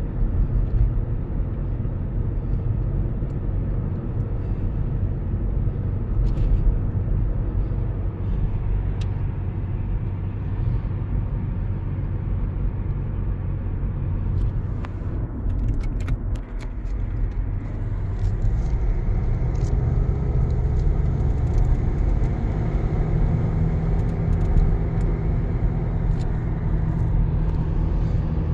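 Volkswagen Passat B7 driving: steady engine and road rumble. About halfway through the sound briefly dips, then returns slightly louder with a steadier engine hum.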